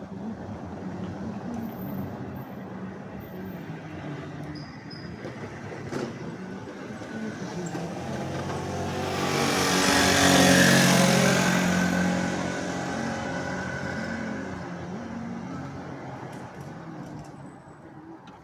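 An engine passes close by, growing to its loudest about ten seconds in and then fading, over a steady low engine hum.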